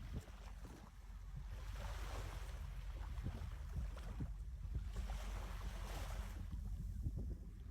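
Sea waves washing in, swelling and fading about every three seconds, over a steady low rumble of wind buffeting the microphone.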